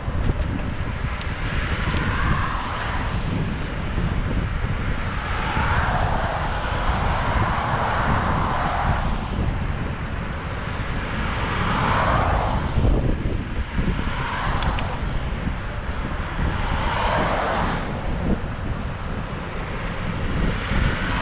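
Wind rumbling on a bike-mounted action camera's microphone while riding, with cars passing on the road alongside: about six swells of tyre and engine noise that each rise and fade over a second or a few seconds.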